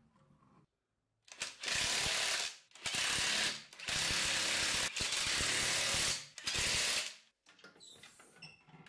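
Ratchet wrench clicking rapidly as it spins wheel bolts in to fit an alloy wheel, in four runs of one to two seconds each that stop about seven seconds in.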